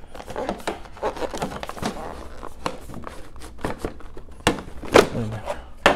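Hands handling a hard plastic clipper case and the items inside it: scattered clicks, scrapes and light rustling, with a few sharper knocks in the last two seconds.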